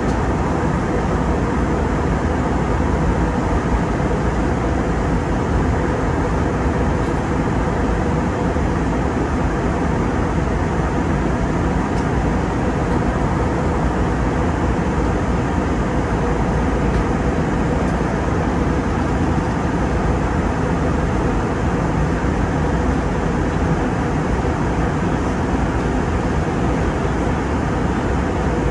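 Steady cabin noise inside an Airbus A320neo airliner in its climb: air rushing past the fuselage over a low jet engine drone, with a faint steady hum.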